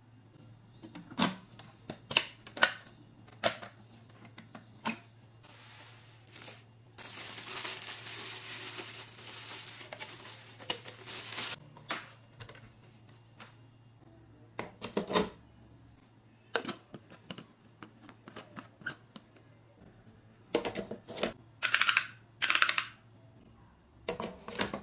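Hard plastic clicks and knocks as the parts of a Ninja Foodi Power Blender (blade assemblies, pitcher, motor base) are handled and fitted together. A steady hiss lasts about four seconds midway.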